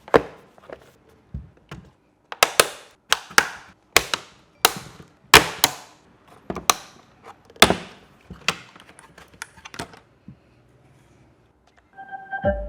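An irregular run of sharp clicks and knocks, roughly two a second, some with a short ringing tail, stopping about ten seconds in. Pitched musical tones start near the end.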